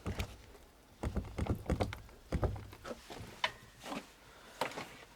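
Lada Kalina car door knocking in its hinges as it is rocked up and down by hand, a run of irregular clunks. The knock is the sign of play in worn door hinges, which the owner puts down to the weight the vibration-damping mat added to the door.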